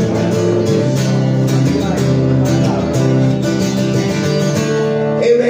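Steel-string acoustic guitar being strummed in a steady rhythm, chords ringing on.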